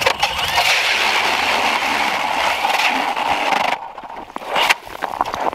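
Strike Master Lite Flite 8-inch ice auger, driven by a Milwaukee Fuel 2804 brushless drill, boring through lake ice: a loud, steady scraping hiss of the blades cutting ice that stops suddenly a little under four seconds in. A brief second burst comes about a second later.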